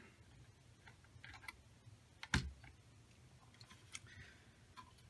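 Faint clicks and light rustling of plastic parts being handled as the DJI Phantom 2's plastic top shell is fitted back over the frame, with one sharper knock about two and a half seconds in.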